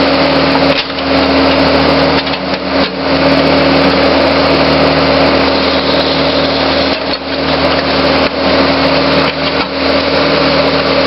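Backhoe's diesel engine running steadily, with the steel bucket scraping and knocking against dirt and broken concrete a few times as it digs.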